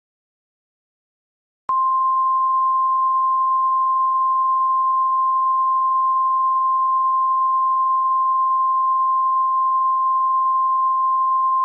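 Emergency alert attention tone: one steady, single-pitched high beep that comes in after about a second and a half of silence and holds for about ten seconds before cutting off abruptly, announcing the alert message to follow.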